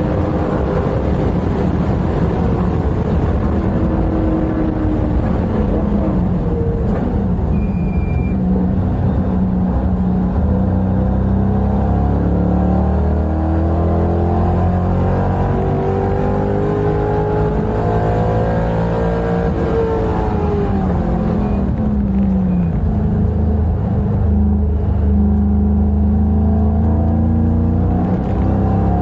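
C5 Corvette race car's V8 engine at racing speed, heard from inside the cockpit: its pitch drops as the car brakes from high revs, climbs steadily for several seconds under acceleration, and falls again later.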